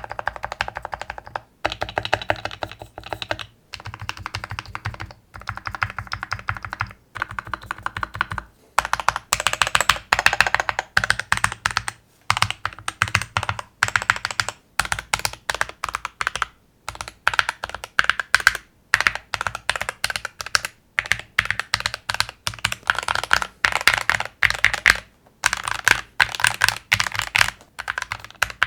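Fast typing on an AEON AC61m 60% hot-swap mechanical keyboard with lubed, filmed Gateron optical yellow switches in a foam- and silicone-damped, tape-modded case. The key strokes come in quick runs of a second or two, with short pauses between them.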